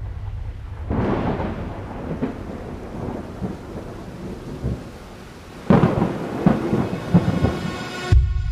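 Thunder rumbling over steady rain, with two rolls of thunder, the first about a second in and the second, sharper and crackling, near six seconds in. The sound stops abruptly just before the end.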